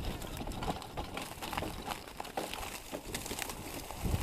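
Dry grass and stalks rustling and snapping against an electric dirt bike as it rides through them: a low rumble under many short, irregular clicks.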